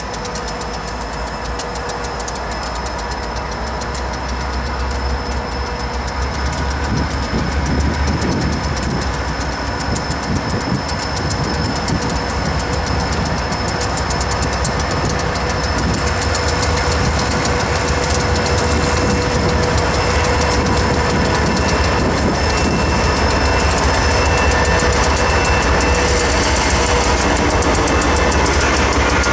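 Two diesel locomotives, an EMD SD40-2 and a GE AC44CW, pull a freight train slowly past at close range. The engines rumble, the wheels clatter over the rails, and the sound grows steadily louder as the locomotives come alongside.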